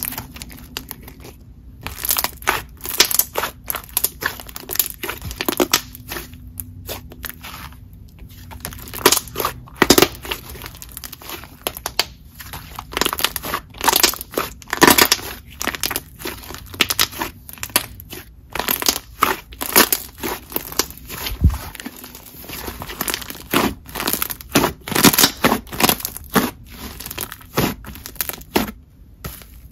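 Hands squishing and stretching a soft, chewy white-glue clay slime, giving a dense, irregular run of sticky clicks and pops with a few brief pauses.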